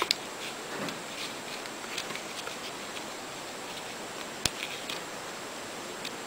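Soft rustling and crinkling of small folded paper units as sonobe origami modules are slid together, over a steady hiss, with one sharp click about four and a half seconds in.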